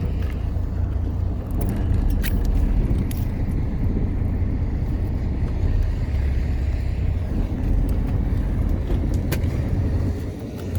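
A fishing boat's engine running with a steady low rumble, with a few faint clicks over it.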